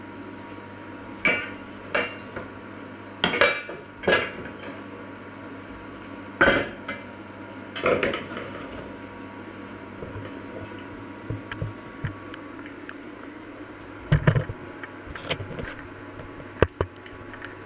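Kitchenware being handled: a scattered series of sharp clinks and knocks of metal pots and utensils, in small clusters with pauses between, over a steady low hum.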